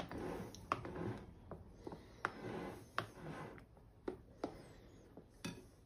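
Silicone spatula scraping and smoothing a thick whipped cream mixture in a glass bowl: soft swishing strokes, several times, with a few light clicks of the spatula against the glass.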